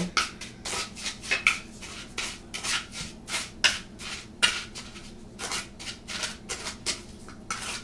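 Metal spoon stirring an oily seasoning marinade in a small bowl, scraping against the bowl in quick repeated strokes, about three a second.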